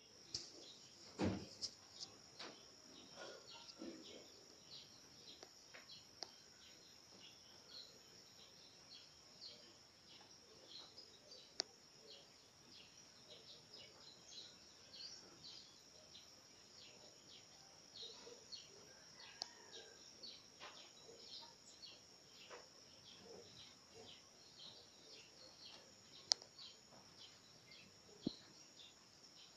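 Faint, near-silent ambience: many short, high chirps of small birds over a steady high-pitched hiss, with a few sharp knocks, the loudest about a second in.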